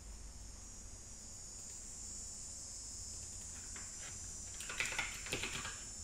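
Cicadas droning steadily outside an open window. Near the end comes a quick flurry of keyboard typing, the loudest sound here.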